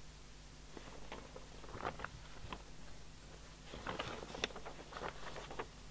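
Printed paper sheets rustling and crackling as they are handled and turned, in two spells of a second or two each.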